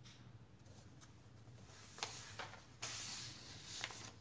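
Sheets of paper being handled: a few crisp crackles about two seconds in, a brief rustle a little before three seconds, and another crackle near the end.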